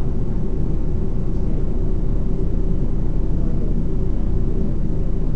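Steady low rumble with a faint hum in it, unchanging throughout.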